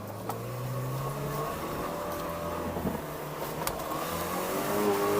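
Engine of a 2009 Liebao (Cheetah) 2.4-litre 4x4 SUV pulling under load in four-wheel drive. It gets louder and the revs climb toward the end, with a couple of sharp clicks along the way.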